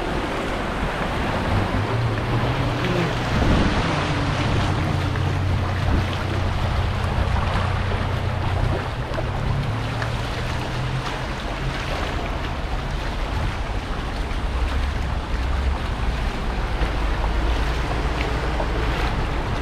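Floodwater sloshing and splashing along a flooded street as cars drive slowly through it, their engines running under a steady low hum for the first half.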